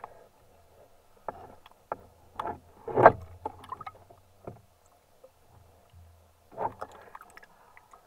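Small waves lapping and splashing against a camera held at the water surface, in irregular slaps, the loudest about three seconds in.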